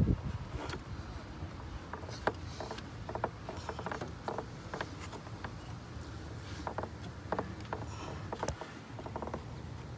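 Silicone intake tube being pushed and twisted by hand onto its fitting: irregular short squeaks and clicks of rubber rubbing and catching against plastic and metal. There is a low thump at the start, a sharp click about eight and a half seconds in, and a faint steady low hum underneath.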